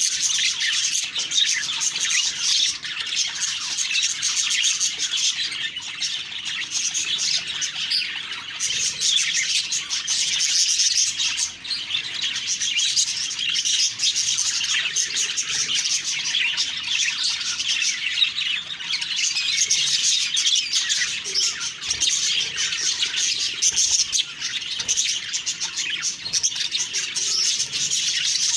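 Budgerigars chattering and warbling without pause, a dense stream of quick, overlapping chirps.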